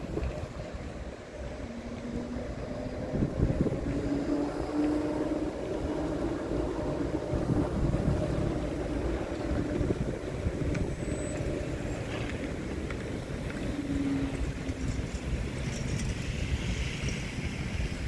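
Škoda ForCity Smart Artic tram and cars passing on a street: a steady low rumble of wheels and traffic, with wind buffeting the microphone. A low hum comes in a couple of seconds in and again later, stepping slightly up in pitch the first time.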